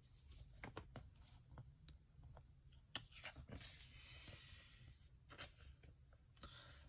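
Faint rustling and light clicks of trading cards being handled, slid into plastic card sleeves and set down on a wooden floor, with a longer sliding rustle about three and a half seconds in.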